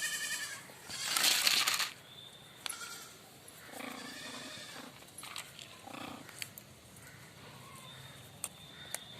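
Short bleat-like animal calls, one at the start and more around the middle, with a loud noisy burst about a second in and scattered light clicks.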